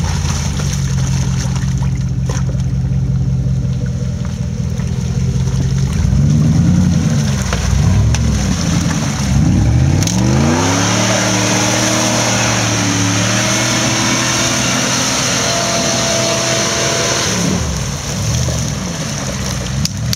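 An off-road 4x4's engine running steadily, then revved up and down several times. From about halfway through, a loud rushing hiss joins it for several seconds while the revs climb, then dies away near the end.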